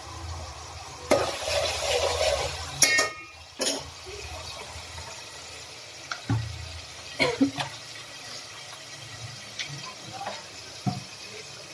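A spatula stirring onion-and-spice masala frying in oil in a pan: scraping and knocking against the pan over a soft sizzle, with a louder metallic clatter about three seconds in.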